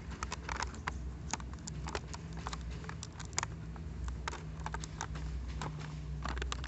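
Fingers picking at the taped seam of a cardboard toy box and handling plastic blister packaging: a run of irregular small clicks and crinkles over a low steady rumble.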